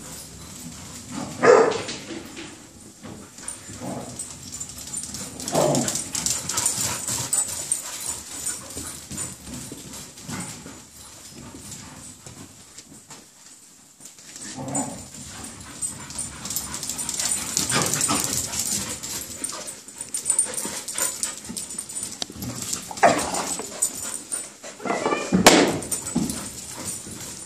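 Playing puppies barking and yipping, several short separate barks spread out over the whole stretch, one of the loudest near the end.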